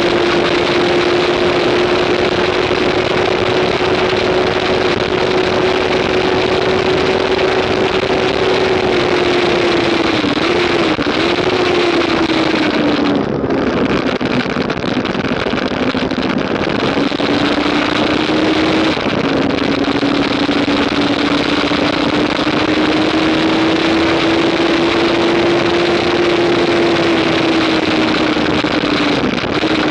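2015 Yamaha R3's parallel-twin engine running hard at track speed under heavy wind rush over the microphone. Its pitch holds steady, dips briefly twice about ten seconds in, drops lower for several seconds around the middle, then climbs back and dips once more near the end.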